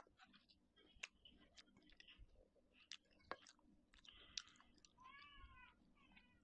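Quiet eating sounds: chewing lettuce leaves and soft-shell crab, with sharp mouth clicks and lip smacks every second or so. About five seconds in, a short high-pitched wavering squeal.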